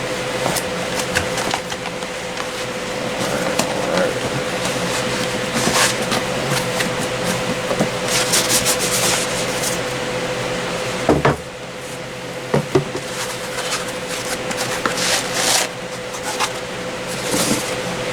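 Cardboard packaging and a small crypto-mining unit being handled: rustling, scraping and a few sharp knocks, over a steady mechanical hum.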